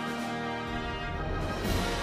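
Background music of held, sustained chords, with a short noisy swell shortly before the end as the harmony changes.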